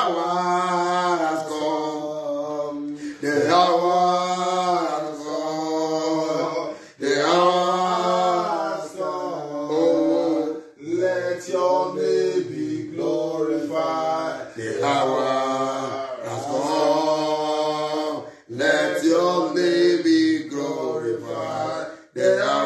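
A man singing solo without accompaniment, in long drawn-out phrases of about three to four seconds each, with brief pauses for breath between them.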